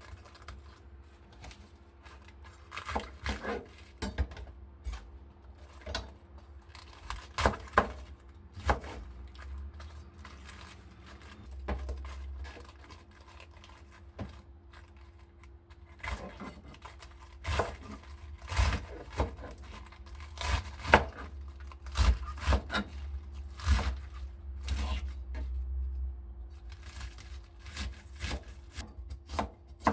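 Kitchen food-preparation sounds: irregular knocks, clicks and rustles of ingredients and utensils being handled, louder in clusters, over a faint steady hum.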